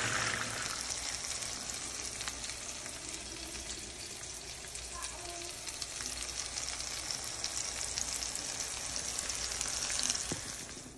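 Hot oil sizzling steadily with fine, rapid crackles as a whole porgy and halved potatoes fry in a frying pan.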